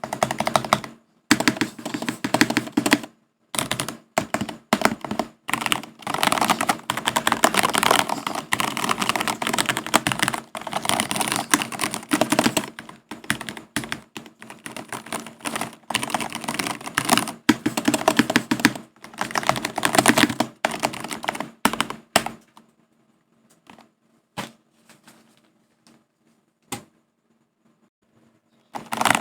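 Typing on a Monokei x Jujutsu Kaisen mechanical keyboard: quick, dense runs of key clacks, thinning after about 22 seconds to a few single keystrokes with quiet gaps between them.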